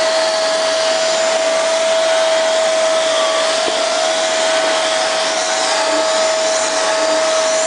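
Vacuum cleaner running steadily with a constant high whine, its nozzle being drawn over a cat's fur.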